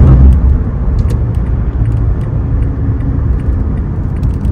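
Road noise inside a car's cabin at highway speed: a steady low rumble of tyres and engine, louder for a moment at the start, with a few faint ticks and rattles.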